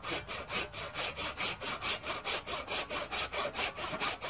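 Hand saw with a yellow handle cutting through a log, in quick, even back-and-forth rasping strokes, about four to five a second.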